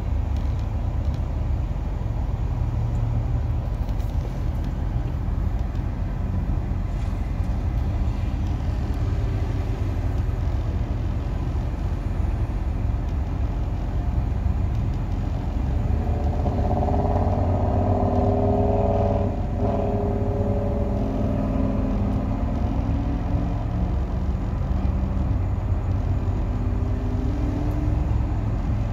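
Road traffic heard from inside a car waiting at an intersection: a steady low engine and traffic rumble, muffled by the cabin, as cars drive across the junction. Past the middle a louder engine hum with a few slightly rising tones swells for several seconds, then fades.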